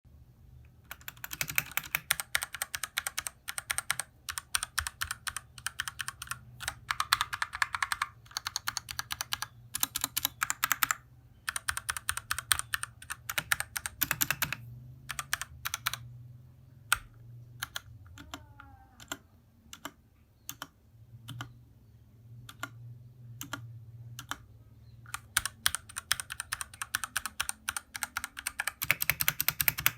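Typing on a Noir N1 v2 65% mechanical keyboard with tactile Gateron Brown switches: fast runs of keystrokes, slowing to scattered single key presses in the middle, then fast typing again near the end.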